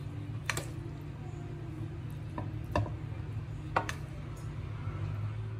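A metal ladle clinking sharply against a cooking pot three times as rice is spooned in for the next biryani layer, over a steady low hum.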